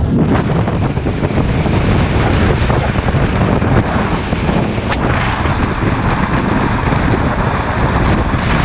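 Heavy wind rushing over the microphone of a camera mounted on the roof of a moving pickup truck, mixed with road noise, with one sharp click about five seconds in.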